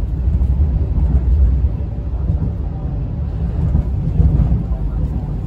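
Hong Kong Light Rail car running along its track, a steady low rumble heard from inside the passenger cabin.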